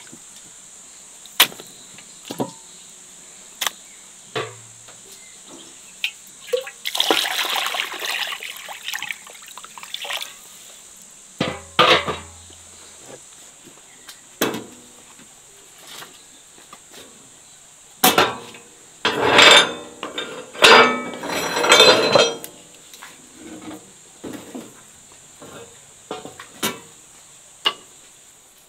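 Kitchen work: scattered clinks and knocks of utensils and dishes, with two longer stretches of rushing noise, one about seven seconds in and one from about eighteen to twenty-two seconds.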